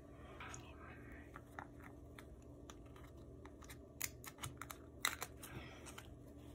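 Faint scattered clicks and taps with brief rustles, from sticker sheets and planner pages being handled as a sticker is peeled off and pressed into place; a few sharper taps come around the middle, over a low steady hum.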